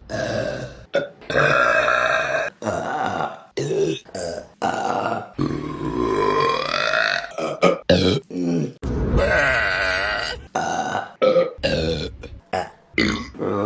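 A rapid string of women's burps cut one straight after another, mostly short, with two longer drawn-out burps near the middle whose pitch slides up and down.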